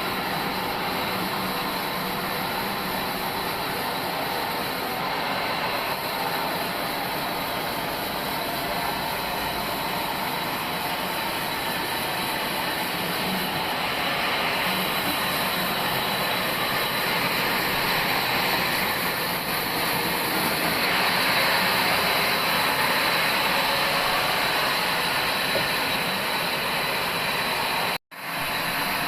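Old bandsaw sawmill running steadily as its blade saws through a dry log, the cutting noise growing a little louder partway through. The sound drops out for an instant near the end.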